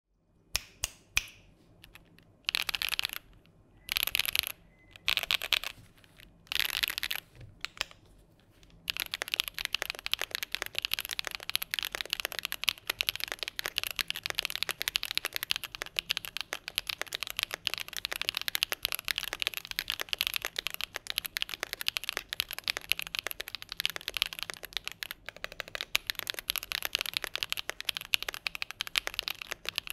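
Typing on a Keychron Q10 Alice mechanical keyboard. A few short separate bursts of key clatter give way, about nine seconds in, to fast continuous typing.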